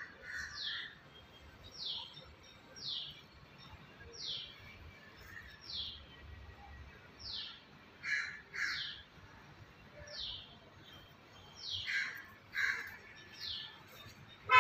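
Squirrel alarm calling: short, sharp, high chirps that fall in pitch, repeated about once a second, the scolding call given at a cat.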